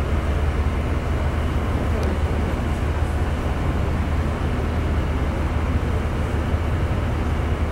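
Inland cargo ship's diesel engine running steadily, a constant low hum.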